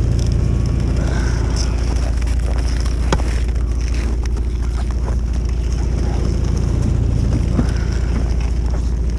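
An engine or motor running steadily with a low, even hum, and a couple of light clicks over it.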